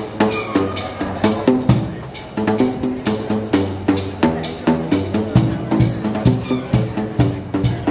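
Busker playing a tune on a pipe instrument, a rack of plastic pipes struck on their open ends with paddles: a quick, steady rhythm of short pitched beats with deep bass notes.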